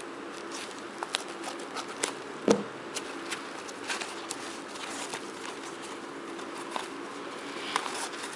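Packaging being handled by hand: foam and wrap rustling and crinkling in irregular clicks and crackles, with one louder knock about two and a half seconds in, over a steady low hum.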